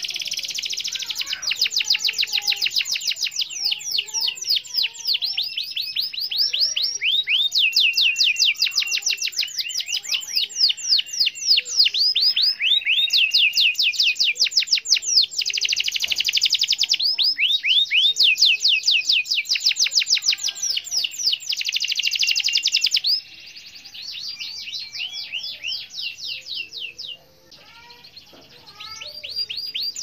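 Domestic canary singing a long rolling song: fast trills of rapid, repeated high sweeping notes run one into the next almost without break. About two-thirds of the way through the song turns quieter, and it pauses briefly a few seconds later.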